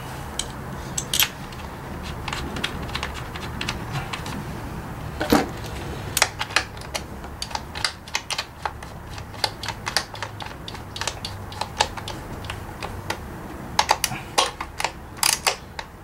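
Hand ratchet clicking in short, uneven runs as the hold-down bolt of a new ignition coil is tightened on a 2009 Ford Focus engine.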